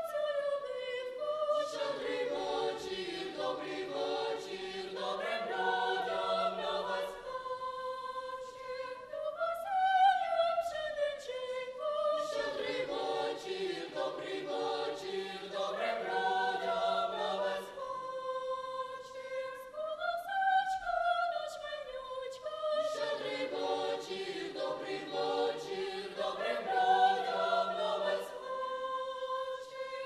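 Children's and youth choir of girls and boys singing in parts, a rising-and-falling phrase of the melody coming back about every ten seconds.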